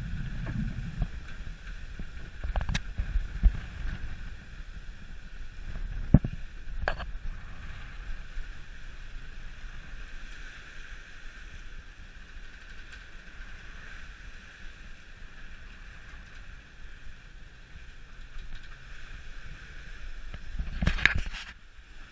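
A schooner under way in open sea: a steady rush of wind and water, with heavy wind buffeting on the microphone at first. A few sharp knocks sound about 3, 6 and 7 seconds in, and a louder cluster of them comes near the end.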